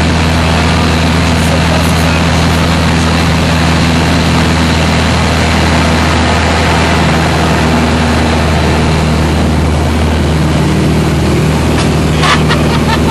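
Light aircraft's piston engine and propeller droning steadily at cruise power, heard inside the cockpit. There are a few brief clicks near the end.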